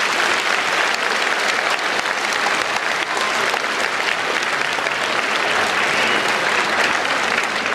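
Circus audience applauding steadily.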